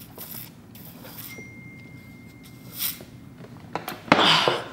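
A woman's sharp, hissing breaths through the mouth, a few spaced seconds apart, with the loudest and longest about four seconds in: panting against the burn of very spicy noodles.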